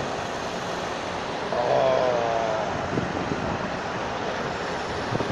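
Tractor running steadily, heard from inside the cab, with a brief wavering voice-like sound about two seconds in.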